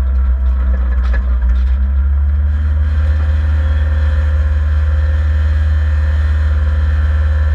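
Rally car's engine running at low revs as the car rolls slowly, heard inside the stripped, roll-caged cabin as a loud, steady low drone. A few clicks and rattles in the first two seconds.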